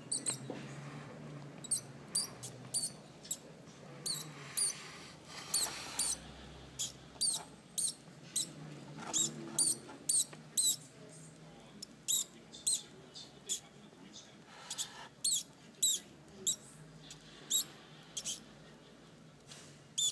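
Newborn pinky mouse squeaking over and over while a baby snow corn snake swallows it alive: short, high-pitched squeaks that drop in pitch, about one or two a second at irregular intervals.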